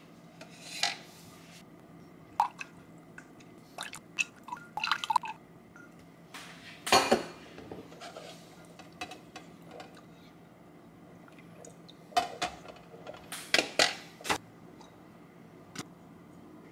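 Kitchen utensil clinking and knocking against a container as water, flour and yeast are mixed into a poolish starter. The sounds come in scattered short strokes, loudest about seven seconds in and in a run from about twelve to fourteen seconds.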